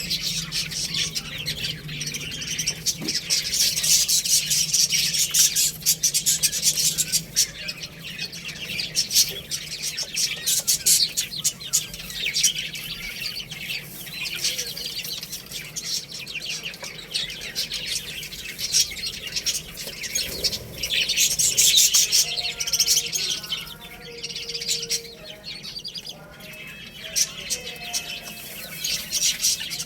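Many chicks chirping in rapid, overlapping high peeps that go on without a break, with some lower calls in the second half.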